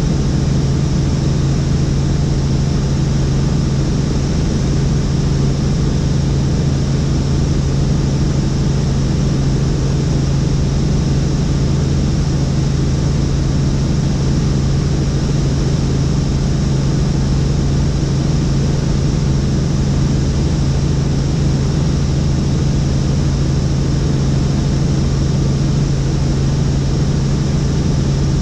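Helicopter in steady flight: an even, loud drone of engine and rotors with a strong, constant low hum.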